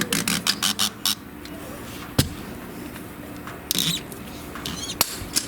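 Stuck plastic fuel filter housing squeaking and creaking as it is forced with a tool: a quick run of squeaks in the first second, a sharp click about two seconds in, a short squeal near four seconds and another click near the end.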